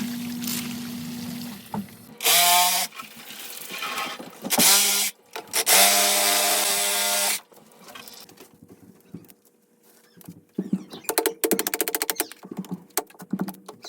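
Power tool running in three short trigger bursts, the last nearly two seconds long, followed by a run of rapid clicks and ticks.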